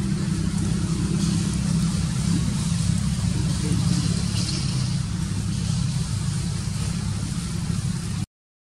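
Steady low motor hum, like an engine running close by, with no change in pitch. It cuts out briefly near the end.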